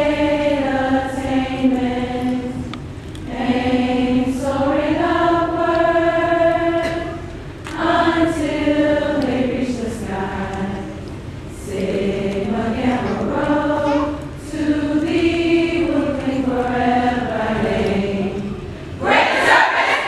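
A group of voices singing slowly together in long held phrases, with short breaks for breath between them. Near the end the singing stops and the crowd breaks into cheering and shouting.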